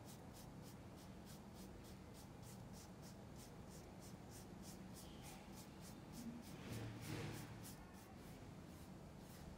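Faint, rhythmic brushing of an oil-paint brush scrubbing back and forth on canvas, about three to four strokes a second. A single louder, fuller stroke or rub comes about seven seconds in.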